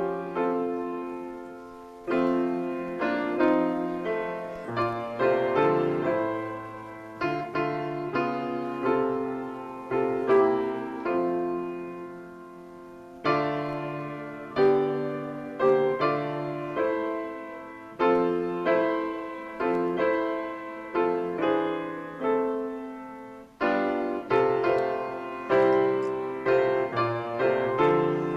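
Grand piano playing slow chords, each struck and left to ring and fade before the next.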